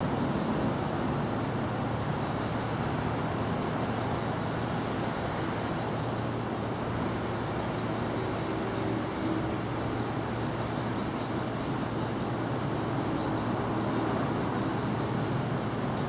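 Steady outdoor background noise with a low hum, like road traffic in the distance.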